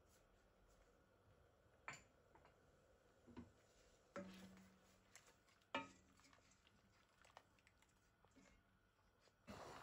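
A few faint, separate knocks and clinks of a spoon against a stainless steel cooking pot while a curry is stirred; one knock about four seconds in leaves a short low ring. A louder cluster of knocks comes near the end.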